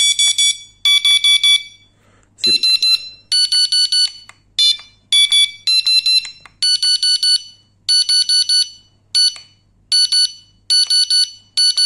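Electronic carp-fishing bite alarm beeping in short bursts of rapid high beeps, about one burst a second. The pitch shifts from one burst to the next.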